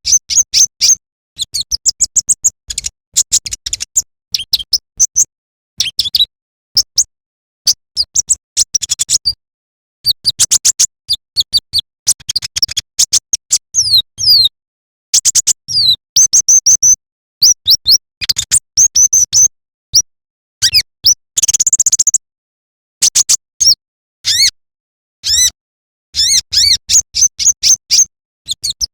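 Brown-throated sunbird (kolibri ninja) singing: rapid bursts of high, sharp chirps and quick rising-and-falling whistles, broken by short pauses, with a brief buzzy rattle about two-thirds of the way through.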